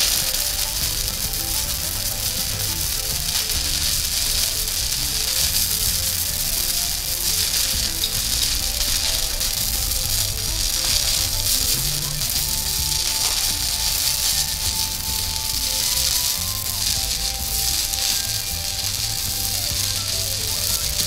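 Stick-welding arc crackling and sizzling steadily as a 16TC electrode is weaved up a vertical fillet weld on steel. Background music plays underneath.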